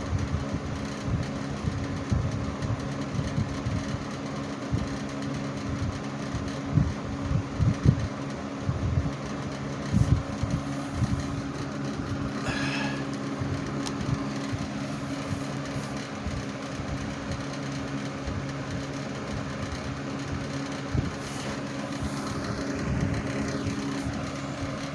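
Vintage box fans, a 1980s Patton with a three-speed Fasco motor and a 1960s Frigidaire with a two-speed General Electric motor, running on low speed alongside an oscillating fan: a steady motor hum and rush of air. Irregular low thumps of air buffeting the microphone run through it.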